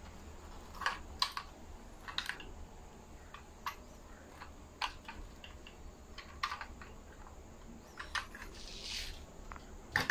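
Light, scattered clicks and taps of a 1:24 diecast BMW i8 model car being handled and turned in the hand. A brief scrape comes near the end, then a louder click as the car is set down on the table.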